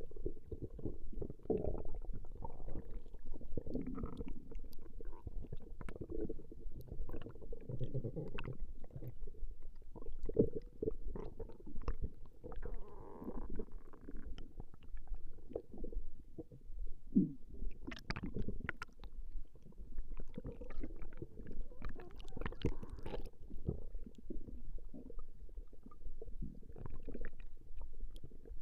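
Human stomach growling and gurgling, recorded close up: a continuous run of low rumbles and small squelching pops, with a short pitched growl a little past halfway.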